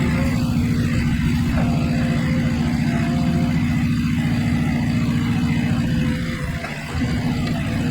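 Skid steer running with its Rhino Solar Pro hydraulic post driver hammering a solar post, a fast steady pounding under the engine note. It eases off briefly a little after six seconds in, then picks up again.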